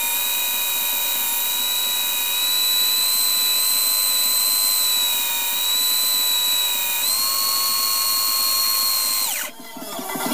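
Electric drill motor driving a homemade wood lathe, running with a steady high-pitched whine. About seven seconds in its pitch steps up slightly, and near the end it is switched off and winds down quickly.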